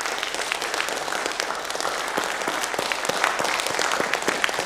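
Audience applauding: many people clapping together in a dense, steady patter of claps.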